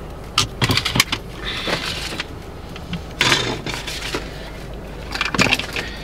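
A car engine running low and steady, heard from inside the cabin as the car creeps forward, with four short bursts of rattling and clinking.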